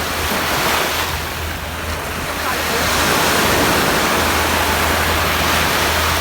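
Surf breaking and washing on a sandy beach, a steady rush that swells louder about three seconds in.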